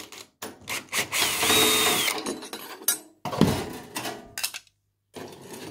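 Cordless drill-driver spinning a screw out of a sampler's metal rack ear: a whirring run about a second long, its whine rising and then holding steady, among clicks and knocks as the metal bracket is worked loose and lifted off.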